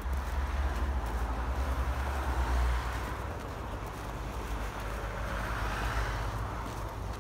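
Wind buffeting the phone's microphone in a deep, uneven rumble, over a hiss of outdoor street noise that swells twice.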